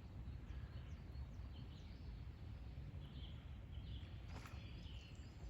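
Wild birds chirping and calling on and off over a low steady rumble, with one brief sharp click a little over four seconds in.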